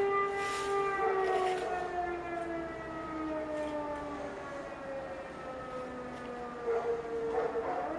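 Air-raid civil defence siren wailing: a steady tone that slowly falls in pitch over several seconds, then climbs back up near the end. It is the air-raid alert signal.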